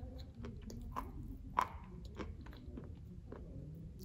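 Close-up chewing of a bitten chunk of glazed edible clay tile, with sharp irregular crunches. The loudest crunch comes about a second and a half in.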